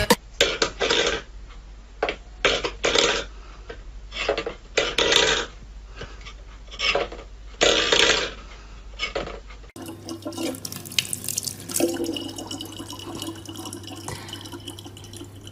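A series of short clattering bursts every second or so, stainless steel bowls knocked about on a wooden floor, then after a sudden change a thin stream of tap water running steadily from a faucet into a plastic bottle.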